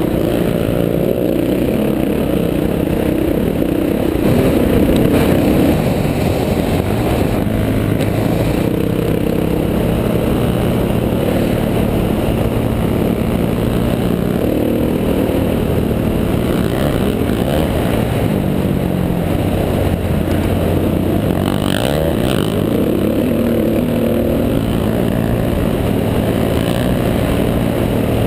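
Sport quad bike's engine running hard under load, its pitch rising and falling with the throttle, with a brief clatter near the end.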